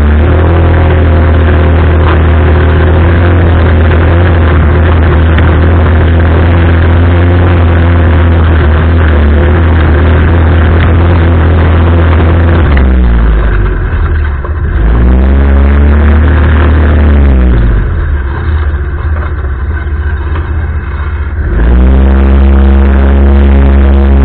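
Single-cylinder four-stroke engine of an Arora Herkul 200cc ATV running under steady throttle while riding. Its pitch drops as the throttle is eased off about halfway through and again near the end, climbing back up each time.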